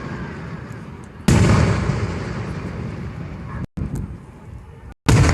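Two loud gunpowder blasts, one about a second in and one near the end, each echoing away over a couple of seconds.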